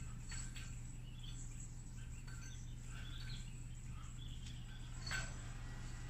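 Faint sounds of a Yoyofriends Sync metal yo-yo being played on its string: scattered light ticks and swishes, with a sharper click about five seconds in, over a steady low hum.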